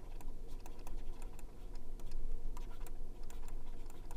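Stylus tapping and scratching on a drawing tablet as characters are hand-written, a run of light, irregular clicks.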